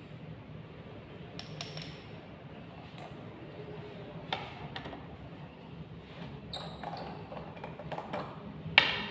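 Scattered light knocks and clinks of glassware and small lab items being handled on a bench, four or so spread out, the loudest near the end, over a low steady room hum.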